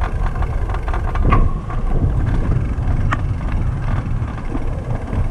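Steady low rumble of wind buffeting the microphone as the bicycle rolls along, with two short squeaks about a second in and about three seconds in.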